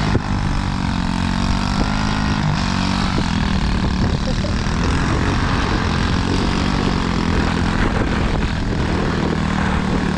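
A vehicle engine running steadily with its pitch rising and falling a little, over a steady hiss.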